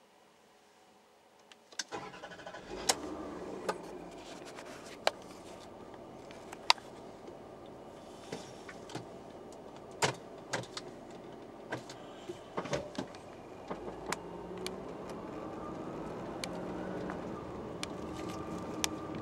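Land Rover Freelander's 2.5-litre KV6 V6 engine starting warm, heard from inside the cabin: the engine catches about two seconds in and then runs steadily, with scattered sharp clicks. Over the last few seconds it grows louder and rises in pitch as the revs climb.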